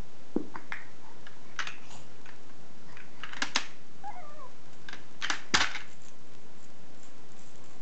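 Hard plastic toys clacking and knocking as a baby handles a plastic shape-sorter box, blocks and a toy rattle: a handful of separate sharp knocks, the loudest about five and a half seconds in. A short wavering squeal from the baby a little after four seconds.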